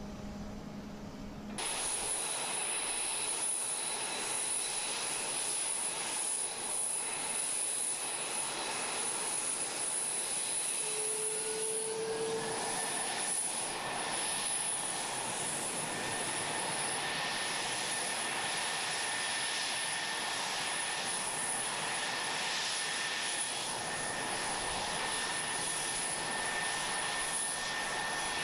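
F-22 Raptor jet engines running on the ground: a steady loud rush with a high turbine whine, starting abruptly about a second and a half in. About twelve seconds in, one of its tones glides up slightly and then holds steady.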